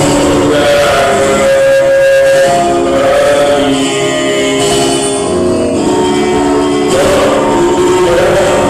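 A pop rock song in the Bugis-Makassar regional style: a voice singing long held notes over a full band accompaniment.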